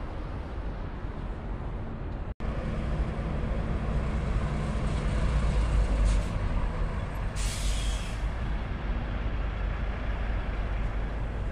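Diesel engine of a semi tractor-trailer running as the rig passes close by, with a low steady rumble that swells midway. A short hiss of air brakes comes about two-thirds of the way through.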